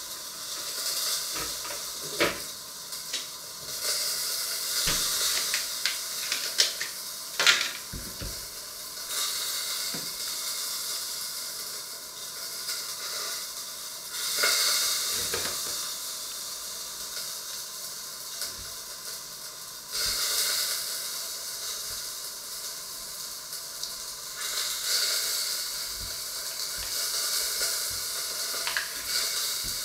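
Steady hissing and sizzling of cooking on the stove, swelling and easing every few seconds, with a few sharp clicks and knocks of kitchen things being handled.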